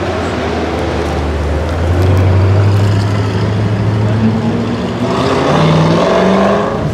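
Car engine idling with a low, steady hum. About five seconds in, an engine note rises in pitch as a car accelerates.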